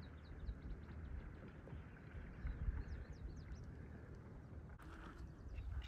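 Faint small waves lapping against a kayak hull: light, irregular ticks and splashes over a low rumble.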